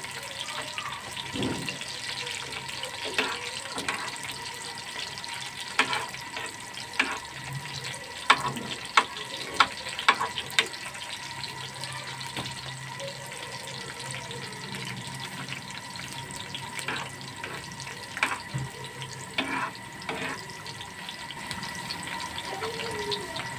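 Sliced onions and whole red chillies frying in hot oil for a baghar (tadka), sizzling steadily, with a spoon clicking and scraping against the metal pan now and then. The onions are still frying on their way to brown.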